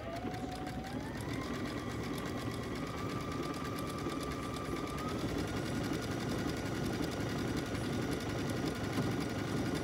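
Electric sewing machine sewing an overcast stitch along a fabric edge. Its motor whine climbs as it speeds up in the first second or so, steps up again about five seconds in, then runs steadily under the rapid chatter of the needle.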